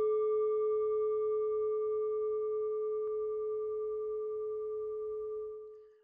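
A singing bowl ringing from a single strike: one steady low tone with fainter higher overtones, slowly dying away and fading out near the end.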